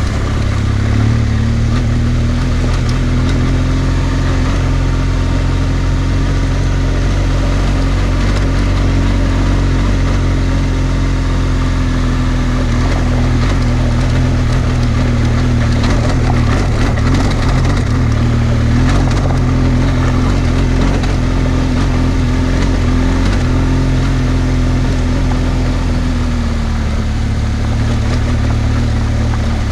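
BMW R1200GS Adventure's boxer-twin engine running at low, steady revs on a rough gravel track. The revs ease off slightly near the end, and stones and the bike's parts clatter now and then, most around the middle.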